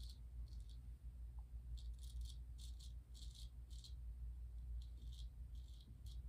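Gold Dollar 208 straight razor shaving through lathered stubble on the face: a series of short, faint scraping strokes, several a second at times.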